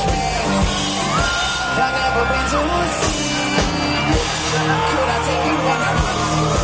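Loud live concert music from a PA: electronic pop-rock with a steady beat, sustained synthesizer lines and singing, with yells from the crowd, recorded from among the audience.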